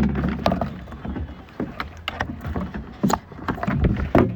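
Plastic window-channel trim being slid into a pickup truck's door and clipped in place: a string of irregular knocks and clicks.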